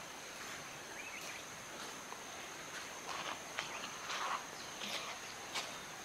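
Forest ambience: insects trilling on one high, steady note, with a small chirp about a second in and several short, sharp sounds in the second half.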